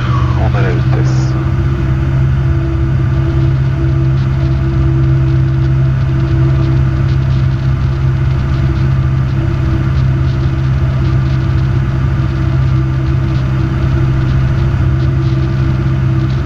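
Robin DR400 light aircraft's piston engine and propeller droning steadily in the cockpit in level flight, with a brief falling sweep in pitch right at the start.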